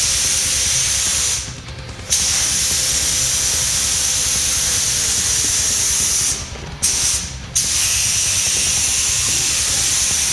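Gravity-feed compressed-air paint spray gun hissing steadily as it sprays the car body. The hiss cuts out briefly three times where the trigger is let go: once about a second and a half in, and twice in quick succession a little past the middle.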